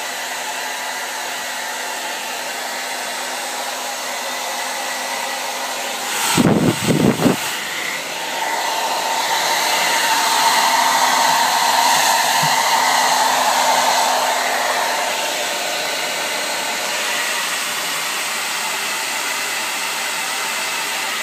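Handheld hair dryer blowing steadily. About six seconds in there is a brief burst of low rumbling, and for several seconds after that the dryer is louder before settling back.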